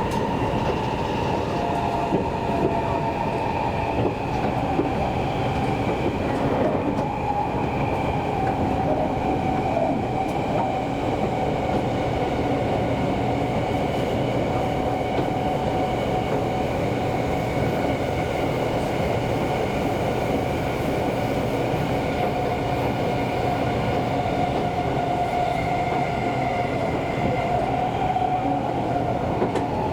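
Seibu Railway commuter train running along the line, heard from inside the car: a steady rumble of wheels on track with a whine that drifts slowly up and down in pitch.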